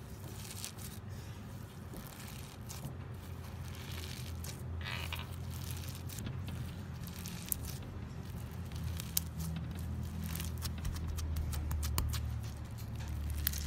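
Glittery pearl slime kneaded and pressed by fingers: sticky squishing with many small crackles and pops, which grow thicker from about halfway through.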